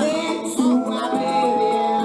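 Background music: a song with a singing voice over instruments, with one note held through the second half.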